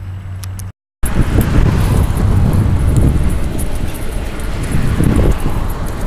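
Wind buffeting and handling noise on a handheld camera's microphone while it is carried at a run: a loud low rumble with irregular thumps. Before a short dropout about a second in, there is a steadier low hum of road traffic.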